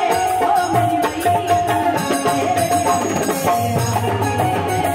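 Live Bhojpuri stage-band music: a keyboard melody with long held notes over steady tabla-style hand-drum percussion.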